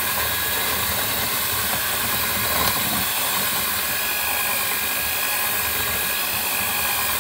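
Electric hand mixer running steadily, its beaters churning cold butter and icing sugar in a glass bowl, with a brief knock nearly three seconds in.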